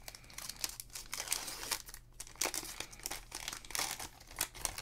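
Plastic cello-pack wrapper of a Panini Prizm football card pack being torn open and peeled back by hand: an irregular run of crinkling and crackling.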